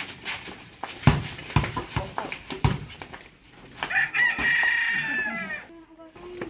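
A rooster crows once near the end, one long call of nearly two seconds that falls away at its close. Before it come a few dull thumps.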